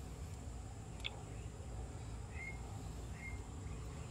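Quiet background with a steady low rumble, a single light click about a second in, and two short high bird chirps later on.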